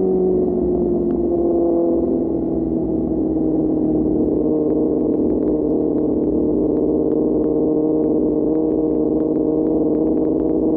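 QJ Motor SRK600 inline-four running through an SC-Project exhaust while riding: the revs drop over the first few seconds, then hold steady.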